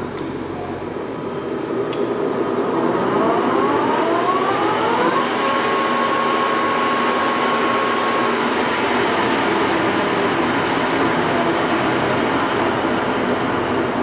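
Axelson engine lathe's spindle and headstock gearing spinning up, a whine rising in pitch over the first five seconds or so, then running steadily at speed with a held whine over the gear noise.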